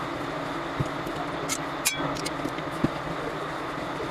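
Steady hum of running engine or vehicle noise in the background, with a few light clicks and taps scattered through it.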